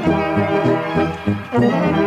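A Bohemian-style brass band playing a waltz: sustained brass melody over pulsing low bass notes, from a cassette recording.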